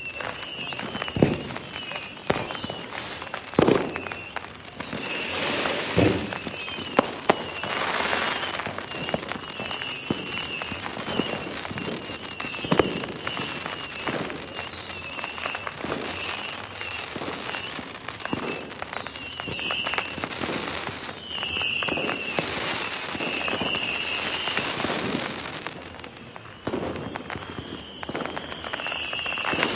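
Fireworks going off: a string of sharp bangs over continuous crackling, with a wavering high-pitched whistle running through most of it. The loudest bangs come in the first several seconds.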